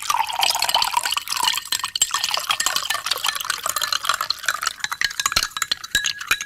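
A drink poured into a glass, splashing steadily, with many small clinks throughout; about five seconds in a faint ringing tone from the glass comes in.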